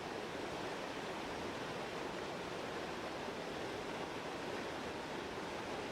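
Canal water pouring over a small drop, a steady rushing.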